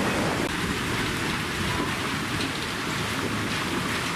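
Steady rushing noise of water on a flooded street, heavy and rain-like, without a break.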